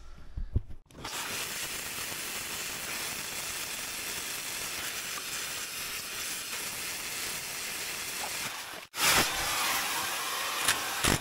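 Steady hiss of an oxy-fuel torch flame heating steel around seized bolts to expand the metal and break the rust free. Near the end, after a break, louder bursts of a cordless impact wrench hammering on a bolt.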